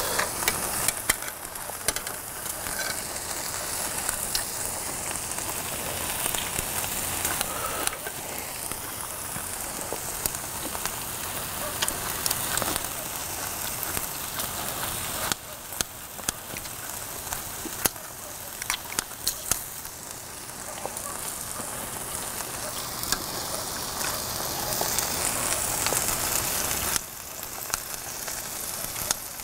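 Beef sirloin slices sizzling steadily on a hot cast-iron cauldron-lid griddle. Sharp metallic clicks of tongs and kitchen scissors come here and there as the meat is turned and cut.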